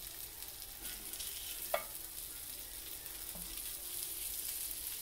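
Lamb suya pieces sizzling steadily on a hot oiled grill as the next batch cooks, with one sharp clink a little under two seconds in.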